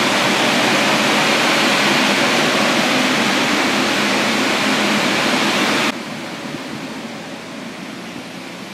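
Air movers (blower fans for carpet drying) and a dehumidifier running, a loud steady rush of air, set to dry out a floor soaked by a burst water pipe. About six seconds in it cuts off suddenly to a much quieter steady hiss.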